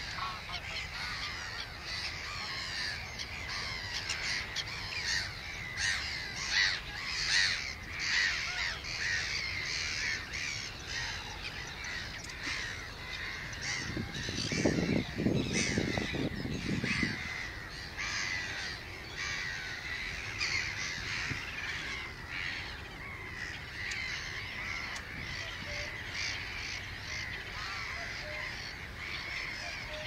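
Many wetland birds calling over one another in a dense morning chorus, with a short, louder burst of lower calls about halfway through.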